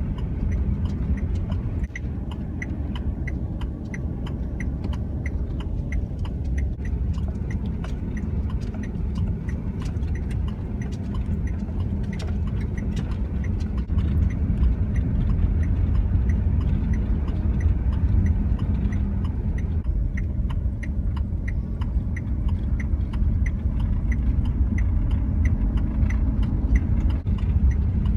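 Cargo van driving on an ice- and snow-packed road: a steady low engine and tyre rumble that grows a little louder about halfway through. A light ticking repeats about twice a second throughout.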